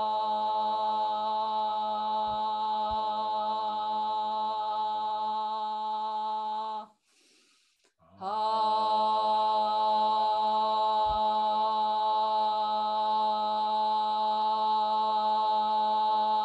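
A woman's voice chanting a long, steady held "ah" on one pitch. It breaks off for about a second near the middle as she takes a breath, then resumes on the same note.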